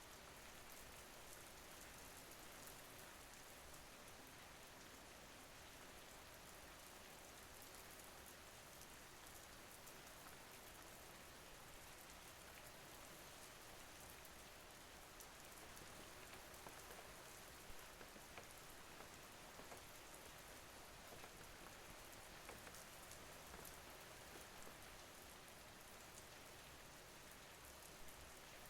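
Steady, quiet rain falling, with the patter of individual drops.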